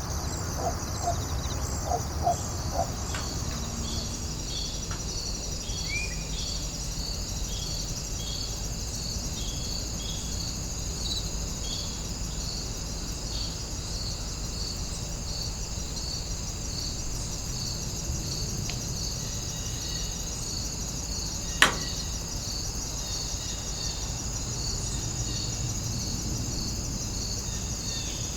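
Crickets chirping steadily: a continuous high trill with a regular chirp about twice a second. There are a few short low calls in the first three seconds, and one sharp click about 22 seconds in.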